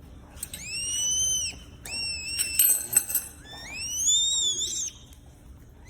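An owl giving three high, whistled calls that arch up and fall away, the last one longer and rising before it drops. A few sharp clicks come between the second and third calls.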